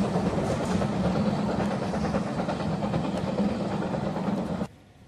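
A steam-hauled train running, heard from on board: a steady, loud rumble of the train on the rails. It cuts off suddenly near the end.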